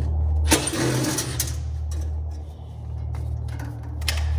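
Clatter and scraping of hands and tools on metal and copper tubing under a reach-in refrigerator's condensing unit, loudest about a second in, with a sharp knock near the end, over a steady low hum.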